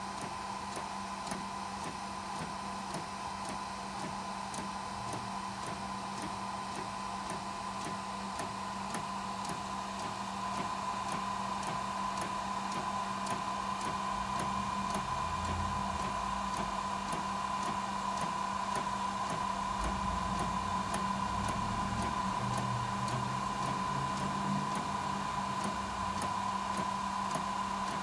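Fujifilm DX100 Frontier-S inkjet photo printer running through a long print: a steady hum with a high whine and evenly spaced light ticks. A lower rumble joins about halfway through as the print feeds out of the front slot.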